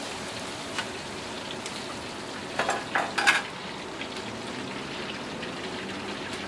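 Mantis shrimp deep-frying in a wok of hot oil, a steady sizzle. A metal ladle and strainer knock against the wok a few times, loudest about two and a half to three and a half seconds in.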